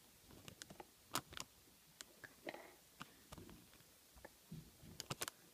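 Scattered faint clicks and taps from a homemade cardboard hook machine being worked by hand, with a couple of sharper knocks about a second in and a quick cluster near the end.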